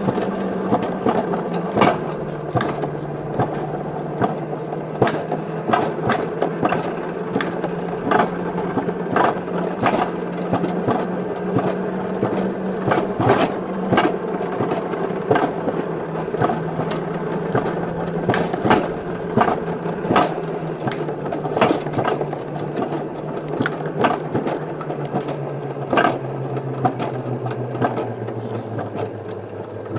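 Alpine coaster sled running along its tubular rails: a steady wheel hum with sharp clicks, one or two a second, as the wheels pass rail joints and supports. The hum sinks in pitch near the end as the sled slows.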